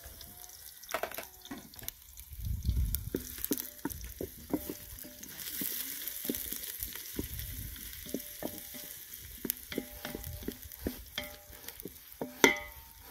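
Chopped red onions sizzling in an aluminium pot over a wood fire while a wooden spoon stirs them, knocking against the pot again and again so that the metal rings briefly after each knock; one louder knock comes near the end.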